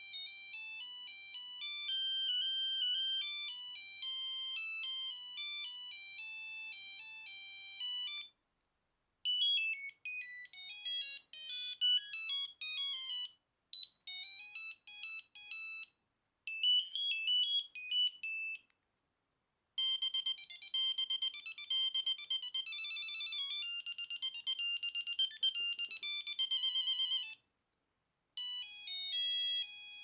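Nokia 8310's built-in monophonic ringtones previewed one after another through the phone's small loudspeaker: short electronic beeping melodies, high in pitch, each tune cut off after a few seconds with a brief silence before the next begins.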